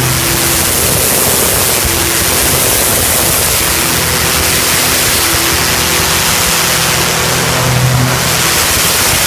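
Hot-water pressure washer spraying through a turbo lance: a loud, steady hiss of the water jet, with a low machine hum underneath that grows and fades.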